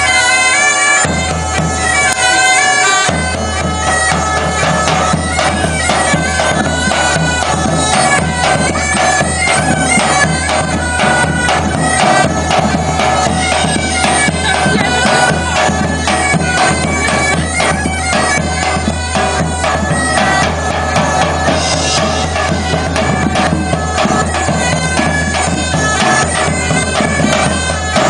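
Two medieval bagpipes playing a tune over steady drones, with a large drum beating along.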